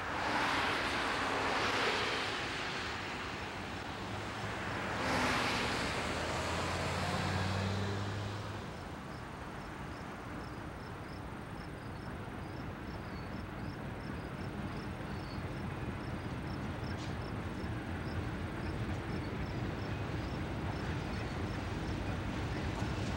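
Conrail GE diesel locomotives hauling an empty coal train approach from a distance, a low steady rumble that slowly grows louder, after two loud whooshes in the first seven seconds. Insects chirp in a fast, even rhythm in the background.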